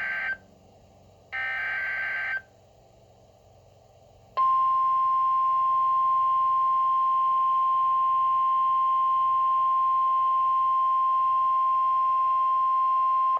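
Emergency Alert System SAME header: two short bursts of buzzing digital data, each about a second long, then the NOAA Weather Radio 1050 Hz warning alarm tone. The alarm tone is one steady tone held for about nine seconds.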